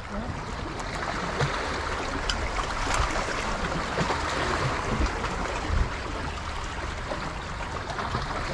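Sea water washing and splashing, a steady rushing with a few faint clicks.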